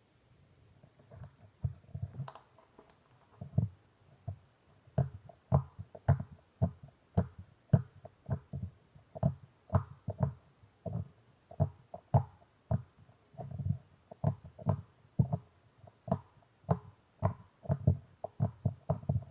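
Clear slime being squeezed and poked by hand, giving a long series of pops and clicks at roughly one to two a second.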